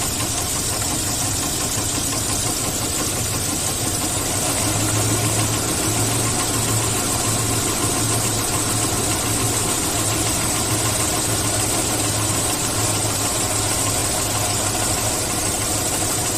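Car engine idling steadily with a light knock in it, in an engine that burns oil. The mechanic traces both to worn cylinders and piston slap.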